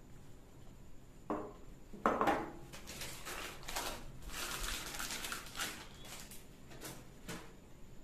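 Two knocks of hard plastic mixer parts, the second louder, then a clear plastic bag crinkling and rustling for several seconds as a mixer jar is worked out of it.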